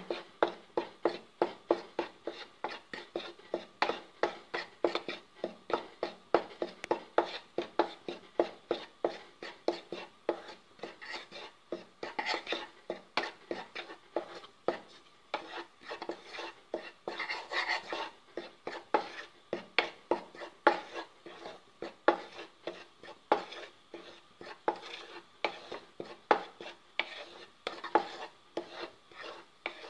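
Wooden spatula stirring and scraping ragi flour in a pan as it is dry-roasted, a steady run of soft knocks about three a second.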